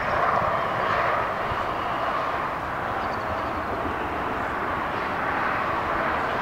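Steady distant engine noise, a continuous rushing drone.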